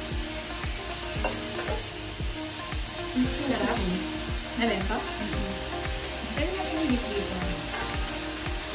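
Sliced pork sizzling steadily on a portable tabletop grill plate, with light clicks of metal tongs as the meat is turned.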